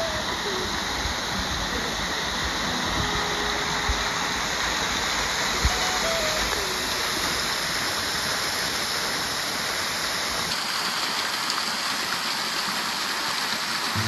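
Steady rush of a 30 m waterfall pouring down rock into its plunge pool, heard close by at its base. Its low rumble thins abruptly about ten and a half seconds in.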